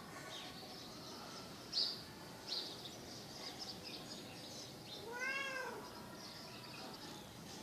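A cat meows once, about five seconds in: a single call that rises and then falls in pitch. Two short high chirps come earlier, around two seconds in, the first of them the loudest sound.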